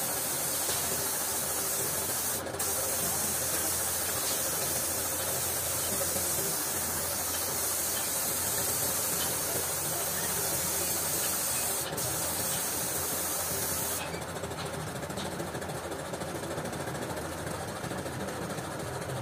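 Compressed-air spray gun hissing steadily as it sprays red paint, with two brief breaks about 2.5 s and 12 s in. The hiss stops about 14 s in, leaving a quieter, lower steady noise.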